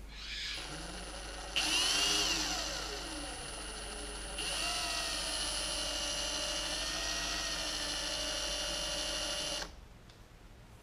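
Electric drill spinning a laser bore sight clamped in its chuck, run to check whether the laser stays centred. The motor whine starts softly, jumps up in speed about one and a half seconds in and winds back down, then runs at a steady speed from about four and a half seconds until it stops about a second before the end.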